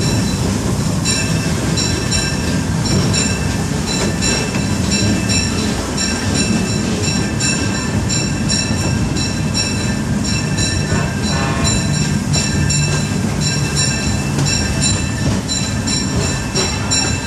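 Steam-hauled Disneyland Railroad train running, heard from aboard: a steady rumble, and from about a second in a fast, uneven run of metallic clicks with high squealing tones from the wheels on the rails.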